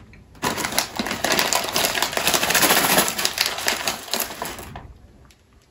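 Plastic candy packet crinkling and rustling as hands dig into it for a piece; the dense crackle starts about half a second in and dies away near the end.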